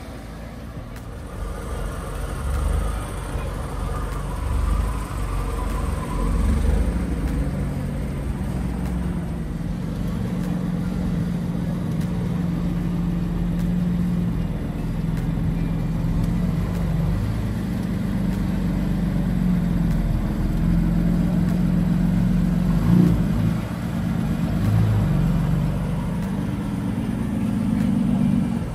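A car engine running, a steady low rumble whose pitch shifts a little now and then.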